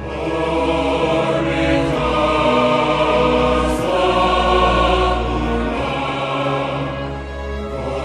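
Music with a choir singing long held chords over a steady bass.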